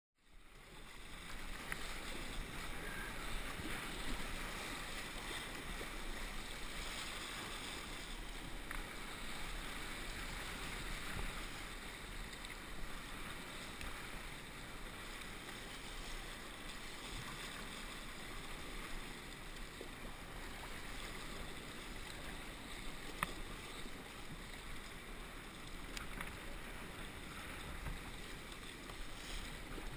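Steady wind and choppy sea water washing around a sea kayak as it is paddled, with a few sharp ticks.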